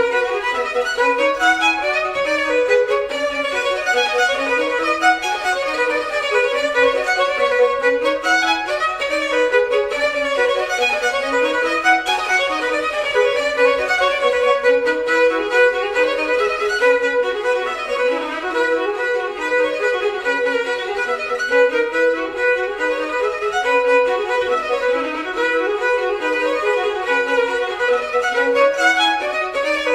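Looping music: a fast, repeating melody of quick stepping notes over a steady held tone.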